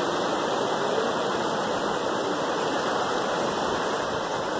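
Brown floodwater rushing steadily through gaps in a bamboo-pole barrier, churning into white water.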